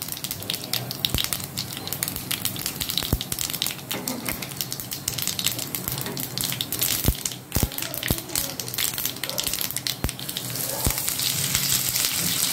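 Hot sesame oil sizzling as mustard seeds and urad dal fry for a tempering, with many sharp pops of spluttering through a steady hiss. The sizzle grows louder and steadier near the end as green leaves are added to the oil.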